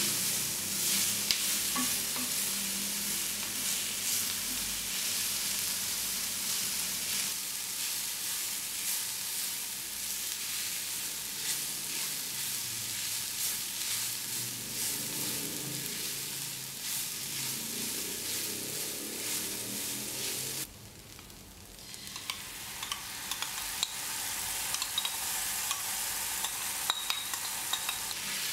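Vegetables and kimchi sizzling as they stir-fry in an enamelled cast-iron skillet, a wooden spatula scraping and clicking against the pan. The sizzle drops away for about a second roughly two-thirds through, then comes back.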